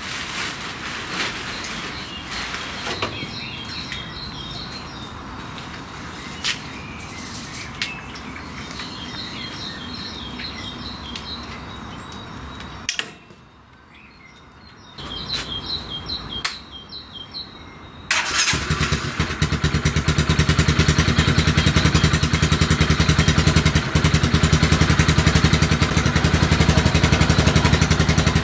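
Birds singing in short repeated trills over outdoor background noise. About two-thirds of the way through, an engine comes in suddenly and runs steadily with an even, rapid pulse.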